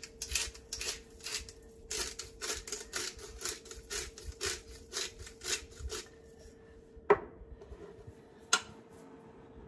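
Salt and pepper being ground over the pot: quick gritty grinding strokes at about three or four a second that stop about six seconds in, followed by two sharp knocks about a second and a half apart.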